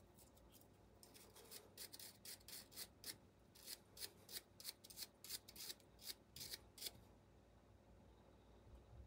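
Faint, quick scrubbing strokes of a cleaning tool against the steel of an AR-15 bolt, about three a second. They start about a second in and stop about seven seconds in.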